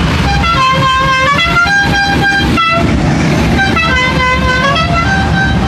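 A musical vehicle horn playing a tune: a quick run of clear notes stepping up and down in pitch, over the low sound of vehicle engines running.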